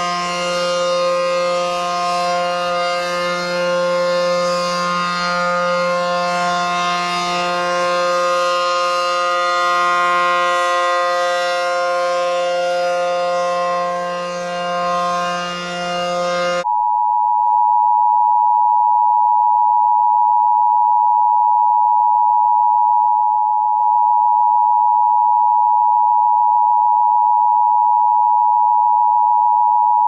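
A siren held at one steady pitch, many tones sounding together, cuts off abruptly about seventeen seconds in. A steady two-tone Emergency Alert System attention signal follows and keeps sounding.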